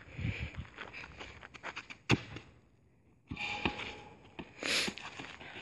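A slightly deflated football kicked on a gravel court: one sharp thump about two seconds in, among scuffing footsteps, with a few more knocks and a short rattle near the end.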